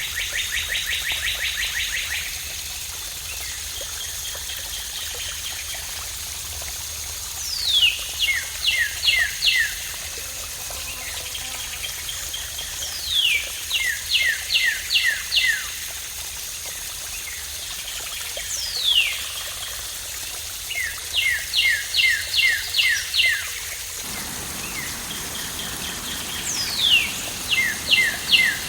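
A songbird singing the same phrase about every five or six seconds: a falling whistle followed by a quick run of four to six short notes, with a fast trill near the start. Steady flowing water runs underneath.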